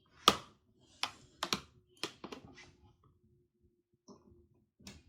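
A series of sharp plastic clicks and knocks, about seven in all, the loudest near the start: hands handling a plastic humidifier unit and its power plug.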